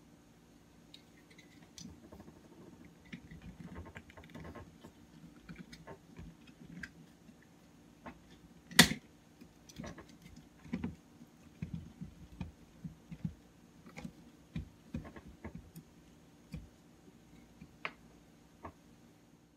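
Handling noise from a phone tripod being assembled: irregular small plastic clicks, taps and rattles as a part is fitted to the tripod head, with one sharp, louder click about nine seconds in.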